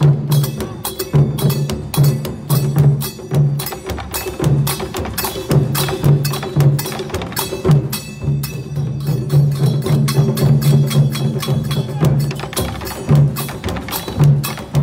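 Music with a steady percussive beat: sharp clicking strikes over a pulsing low note.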